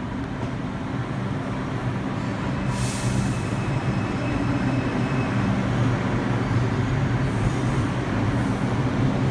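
New York City subway train at the station platform, a steady hum with low tones that grows slowly louder, with a short hiss of released air about three seconds in.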